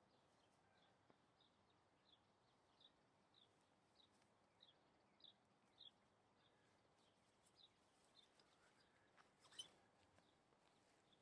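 Near silence: a faint small bird chirping over and over, about two short chirps a second. About nine and a half seconds in there is a brief, louder sharp rustle.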